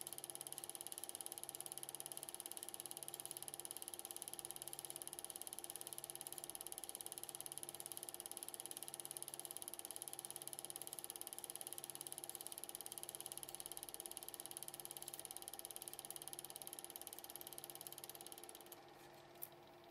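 8mm film projector running: a rapid, even mechanical ticking from the film-advance mechanism over a steady motor hum. The sound drops away near the end, with a single click.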